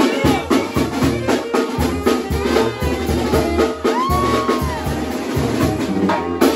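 Live brass band playing in the room: a tuba bass line under drum kit and cymbals, with horns on top and a steady beat.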